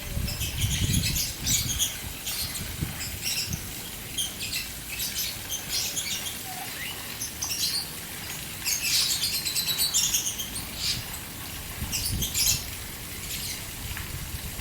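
Caged birds chirping in many quick high calls throughout, over the steady splashing of a fountain.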